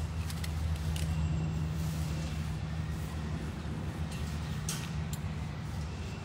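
Engine running steadily, a low even hum that eases a little in the second half, with a few faint clicks about a second in and again near the end.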